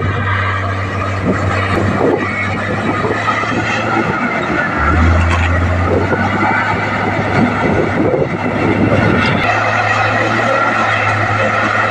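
Komatsu D58P bulldozer's diesel engine running steadily under a dense, irregular rattle. About five seconds in, the engine note drops lower for several seconds, then comes back up.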